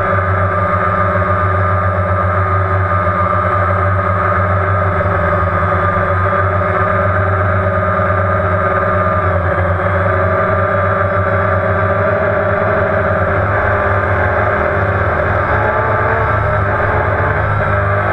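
DJI Phantom quadcopter's four motors and propellers buzzing steadily in flight, heard from the GoPro mounted on the drone, with small shifts in pitch partway through as it manoeuvres.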